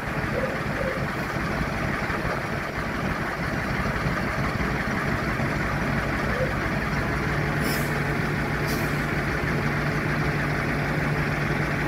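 Dennis RS133 fire engine's diesel engine idling steadily while parked, with two short hisses about eight seconds in.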